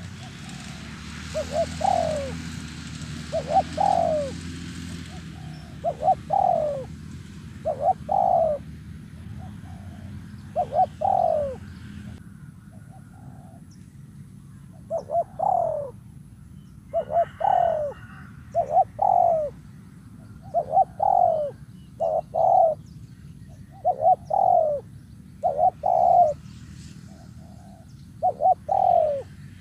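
Spotted dove cooing over and over: short, falling coos, mostly in close pairs, repeating every second or two. This is a call for luring wild doves. A steady low rushing noise runs underneath and stops about twelve seconds in.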